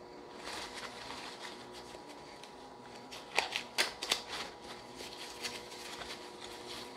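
Thin white packing wrap rustling and crinkling as hands pull it apart to free a small glass bong bowl, with a few sharper crackles about three and a half to four seconds in.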